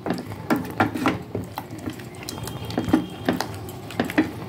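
Wooden spatula knocking and scraping against a stainless steel pot, several irregular clacks a second, while stirring a thick onion-yogurt masala paste as it sautés.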